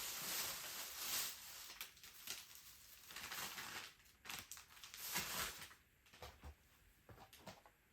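Rustling and crinkling of paper or plastic being handled for about four seconds, then quieter, with a few light clicks and knocks.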